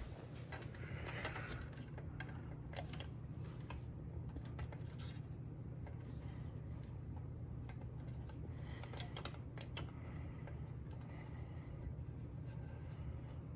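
Scattered light clicks of a wall dimmer switch's paddle and buttons being pressed, over a low steady hum.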